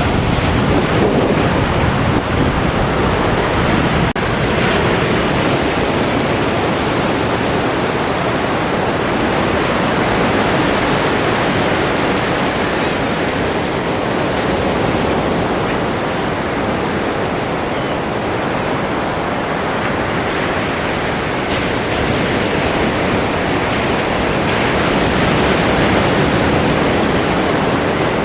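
Ocean surf: a continuous hiss of breaking waves that swells and eases slowly, with a momentary break about four seconds in.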